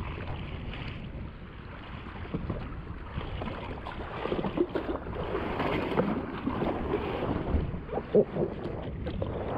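Wind buffeting the microphone while small waves slap and slosh against the hull of a drifting jet ski, with irregular splashes and light knocks, busiest in the second half.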